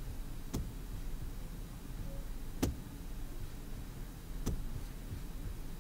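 Computer mouse clicking: four single sharp clicks about two seconds apart over a faint low steady hum.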